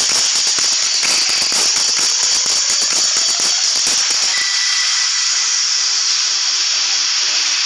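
Loud, steady hiss with dense low crackling; the crackling drops away about four and a half seconds in, leaving the hiss and a few faint steady tones.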